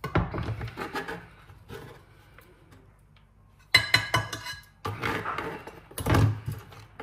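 Kitchen utensils and a bowl clattering and scraping on a counter, with a sharp ringing clink a little under four seconds in and a heavier knock near the end.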